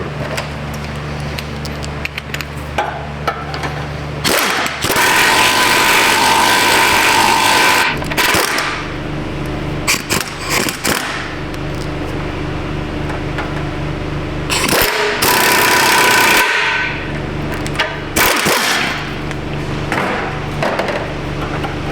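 An impact wrench running in two hammering bursts, the first about four seconds long and the second about two, turning a pipe stretcher to expand an exhaust pipe end, over a steady low hum, with metal clinks in between.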